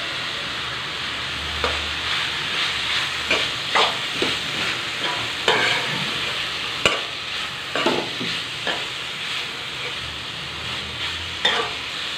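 Chicken-and-vegetable sandwich filling sizzling in a frying pan while a metal spoon stirs it. From about a second and a half in, the spoon scrapes and knocks against the pan roughly once a second.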